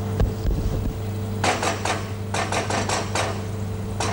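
Wooden spoon knocking against the sides of a stainless steel saucepan while tomato sauce is stirred: a quick run of about ten knocks, starting about a second and a half in.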